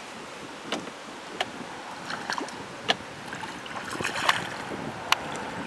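Wind and lapping water around a small boat, with a handful of sharp, irregularly spaced clicks and knocks.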